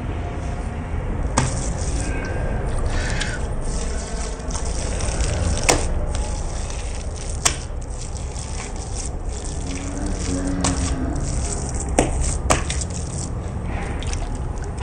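Street-food stall background: a steady low rumble with a hiss, broken by a handful of sharp clicks and knocks while minced meat for chapli kababs is being shaped.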